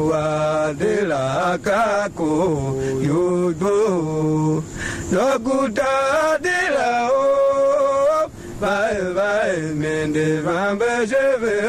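A solo voice chanting a melody in long held, wavering notes, with short breaks between phrases.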